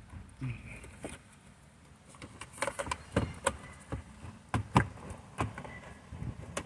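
Irregular sharp plastic clicks and knocks from a Honda Element's instrument cluster being handled while its wiring connectors are unplugged: the retaining tabs pressed in and the plugs pulled free.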